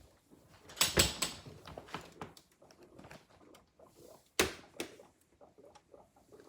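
Sharp clicks and knocks from a freezer: a cluster of loud snaps about a second in and another near four and a half seconds, with small ticks and crackles between.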